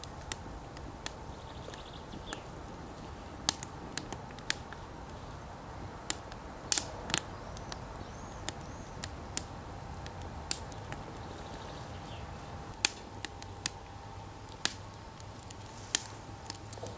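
Fire crackling in a metal barrel stove: irregular sharp pops and snaps, one or two a second, over a low steady background.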